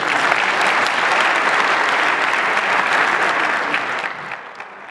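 Audience applauding in a hall, a dense steady clapping that fades out over the last second.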